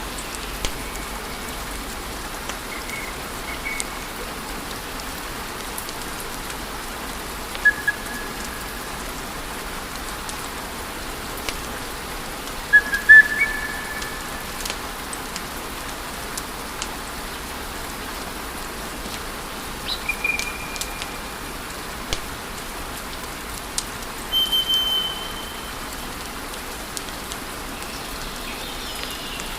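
Wood fire crackling with a steady hiss and scattered sharp pops, the loudest cluster about halfway through. Several short, high, steady whistles come from the burning wood.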